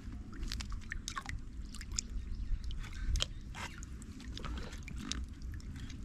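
A hooked carp splashing and thrashing at the water's surface on the line: a run of irregular short splashes and slaps. Underneath is a steady low rumble of wind buffeting the microphone.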